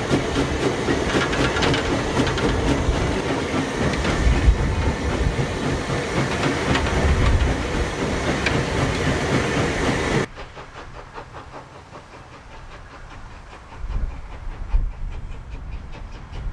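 Footplate sound of a small steam locomotive on the move: a steady rumble and hiss with the clatter of wheels over the rails. About ten seconds in it cuts abruptly to the quieter sound of a steam locomotive approaching along the line, with a couple of louder knocks near the end.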